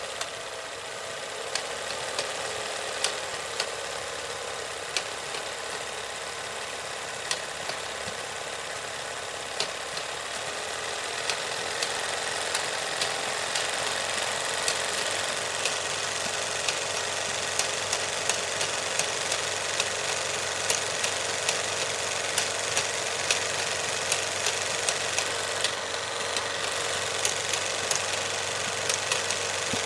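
Cinema film projector running: a steady mechanical whirr and rattle with scattered sharp clicks. It gets slightly louder about twelve seconds in.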